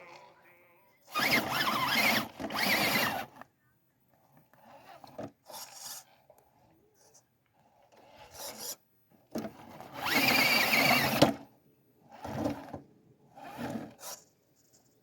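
Tamiya CC02 radio-controlled truck's small electric motor whining in a series of short drive bursts with a rough noise, the longest lasting nearly two seconds about ten seconds in.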